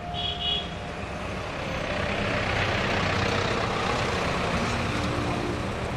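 Road vehicle noise: an engine running under a wash of traffic noise that swells louder for a couple of seconds as a vehicle goes past. A brief high tone sounds near the start.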